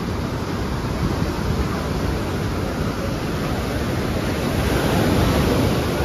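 Ocean surf washing and breaking on a sandy beach, a steady rush of waves that swells louder for a moment about five seconds in.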